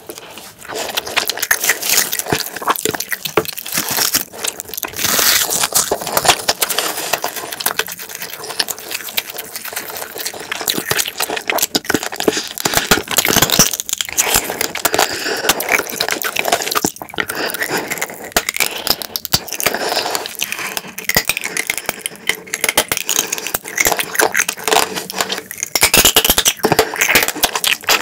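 Close-miked eating of spicy marinated raw crab (yangnyeom gejang) with fried rice: wet chewing and sucking at the crab pieces, with a dense run of small crackles and clicks throughout.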